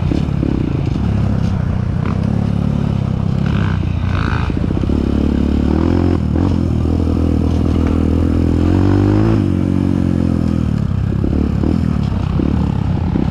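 Dirt bike engine running under load on a trail, its pitch climbing steadily as it revs for a couple of seconds, then dropping back about two-thirds of the way through, with occasional clatter and knocks from the bike over rough ground.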